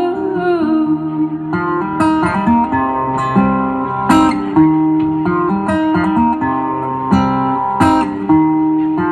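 Solo acoustic guitar in an instrumental passage of a live song, strummed and picked chords with sharp strums every second or so. A held sung note bends and trails off in the first second.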